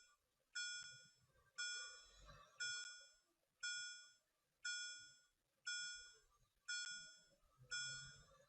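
Level-crossing warning bell ringing, one strike about every second, each ringing out and dying away before the next: the crossing signal warning of an approaching train.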